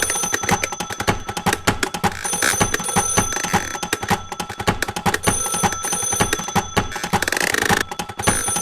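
A recording of household sounds playing back: rapid, regular clicking under steady, bell-like ringing tones, with a short buzzing stretch about seven seconds in.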